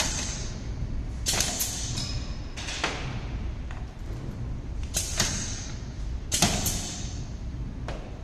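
Pneumatic perfume-bottle capping machine cycling: compressed air hisses out in short, sharp bursts, each starting with a click. Several come in pairs a fraction of a second apart.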